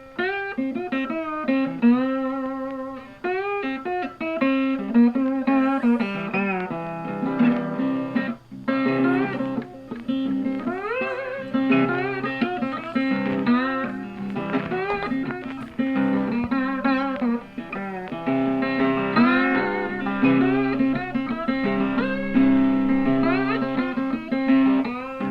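Background music: a bluesy guitar tune with bending notes over a steady bass line.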